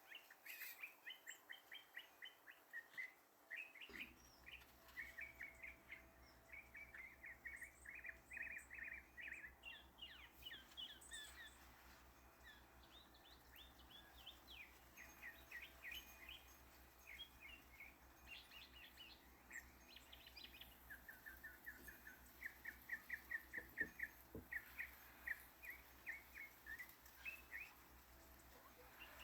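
Faint songbirds chirping, with quick runs of repeated notes.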